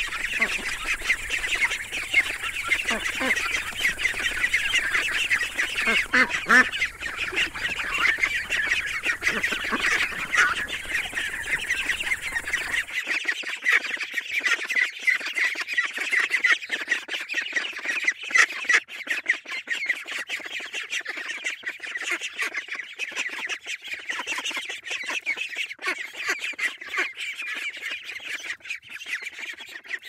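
A brood of mallard ducklings peeping nonstop, many rapid high calls overlapping, with a few lower calls in the first several seconds. A low background rumble stops abruptly about thirteen seconds in.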